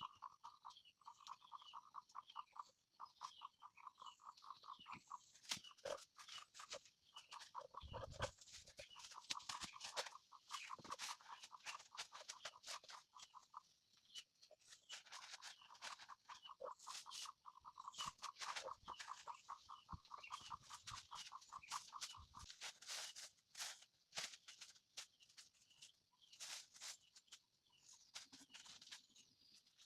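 Faint animal call: a fast, even pulsing trill at one pitch, in two long runs with a short break about halfway through, over scattered sharp clicks.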